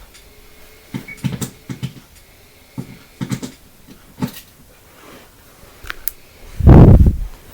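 Clicks and knocks of a weather radio and its power cord being handled and plugged in, followed near the end by one loud, low thump.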